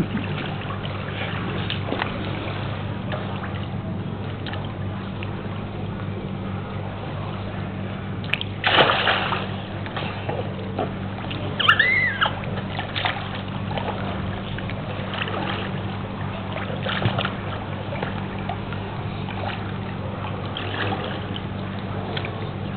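Water splashing and sloshing in a small pool as a toddler in armbands moves and is caught in the water, with a louder splash about nine seconds in. A short high squeal from the child comes about twelve seconds in, over a steady low hum.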